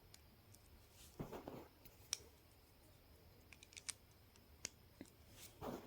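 Plastic Lego pieces being handled and pressed together: a few faint, sharp clicks with a couple of brief scraping rustles.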